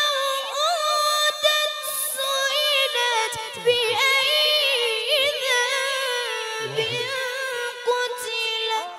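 A boy qari's Iranian-style Quran recitation: one long, high melismatic phrase held near a single note with rapid ornamental turns and wavers. It cuts off suddenly at the very end.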